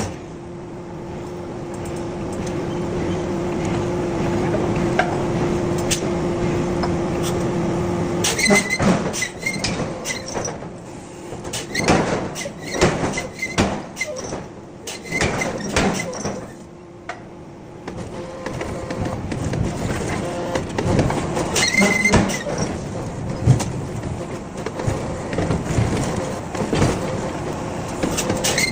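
Forging-shop machinery: a steady machine hum with a held tone for about the first eight seconds, then a long run of irregular metal clanks and knocks with short squeaks.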